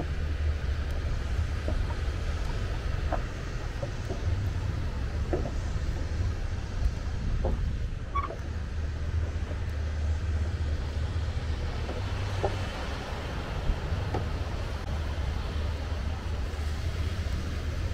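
Seaside ambience: a steady low rumble of wind on the microphone over the soft wash of small waves on a pebble beach.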